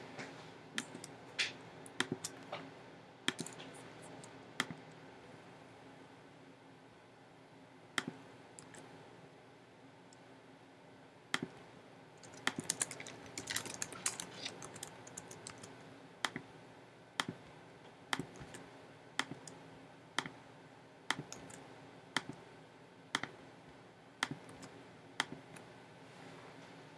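Computer keyboard typing: irregular key clicks, with a quick flurry of keystrokes about halfway through.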